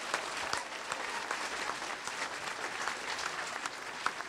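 Large audience applauding steadily, many hands clapping.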